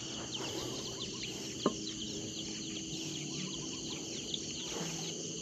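Small birds chirping, many short quick calls overlapping, over a faint steady low hum, with a single sharp click a little under two seconds in.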